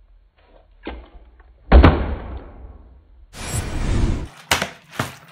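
A small, partly filled plastic water bottle is flipped and lands hard on a tabletop with a loud thud that trails off over about a second. A light knock comes just before it, and near the end there is a rustle and two sharp knocks.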